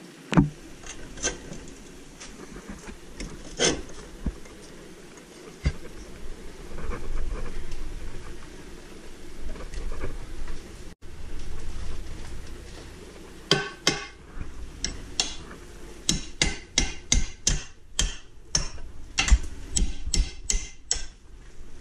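Hammer blows on steel at a car's rear suspension knuckle, as when driving a bolt or punch through: a few scattered sharp strikes at first, then a quick run of blows, about two or three a second, over the second half.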